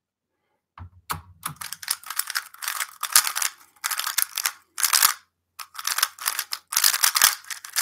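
A 3x3 speedcube being turned at full speed in a timed speedsolve: a fast, continuous clatter of plastic clicks that starts about a second in.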